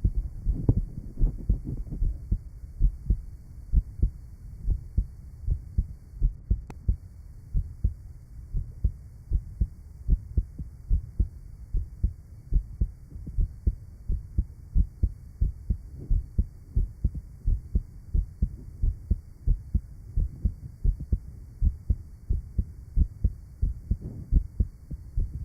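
Heart sounds of a patient with rheumatic mitral valve disease, heard at the lower left sternal border: low thumps in quick, regular succession.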